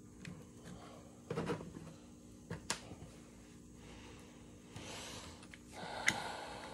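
Faint clicks and knocks of small metal parts being handled as the solenoid mounting screws are fitted to an old GM starter, with a short ringing metallic clink near the end.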